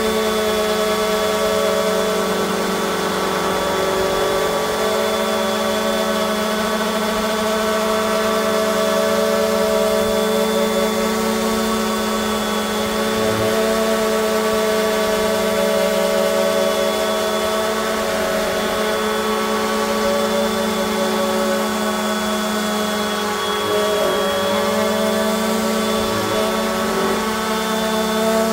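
Cordless random orbital sanders, a DeWalt DCW210 at speed 7 and a Flex FX3411, running flat out on an MDF board with 80-grit paper. The motor hum is steady, with strong, evenly spaced overtones and a thin high whine above them. The pitch and level waver slightly now and then as the pads are pressed and moved.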